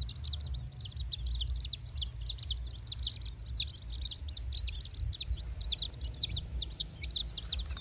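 Baby domestic chicks peeping steadily: a quick stream of short, arched cheeps from several birds overlapping one another.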